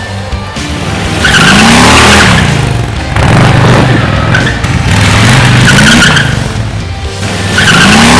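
Harley-Davidson Street Bob's 114-cubic-inch Milwaukee-Eight V-twin running, its sound swelling and falling away three times as the motorcycle rides off and past, with background music under it.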